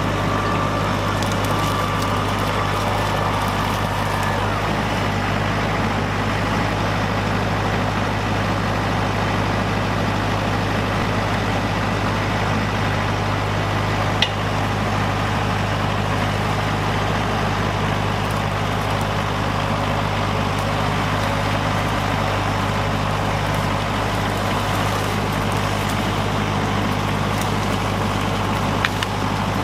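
LS XR4040 compact tractor's diesel engine running steadily under load as its loader forks push into brush. Two short sharp clicks stand out, one about halfway through and one near the end.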